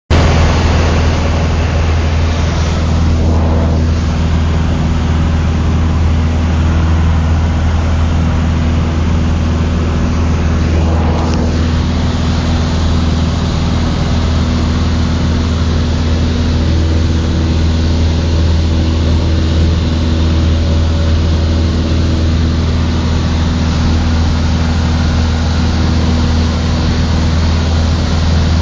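Cessna 150's Continental O-200 four-cylinder engine and propeller running at steady power: a loud, even drone with a constant low hum.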